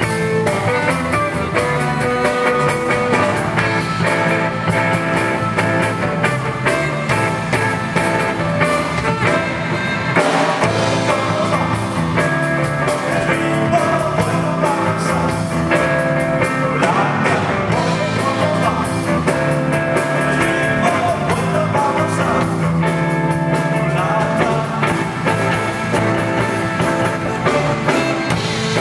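Live blues-rock band playing, led by a semi-hollow electric guitar, with the guitarist singing into the mic partway through.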